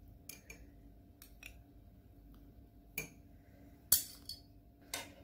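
Metal spoon clinking and tapping against a glass mug while spooning in soaked basil seeds: a scattering of short, sharp clinks, the loudest about four seconds in.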